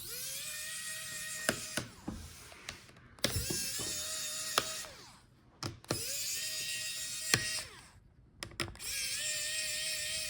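A small electric screwdriver backing out the laptop's heatsink screws: four short runs of a steady whir, each rising as the motor spins up and dropping as it stops, with small clicks of handling between them.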